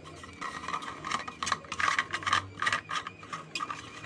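A blue 3D-printed plastic nut being turned on the spool holder's large printed threaded spindle, the plastic threads rubbing and clicking in a quick, irregular series of dry scrapes.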